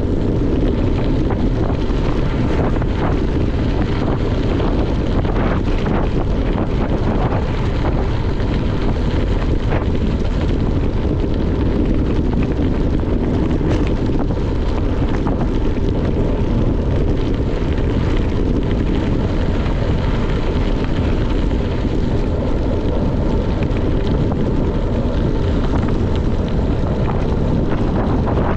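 Wind rushing over the microphone while riding a gravel bike: a steady, low, unbroken noise with a few faint ticks through it.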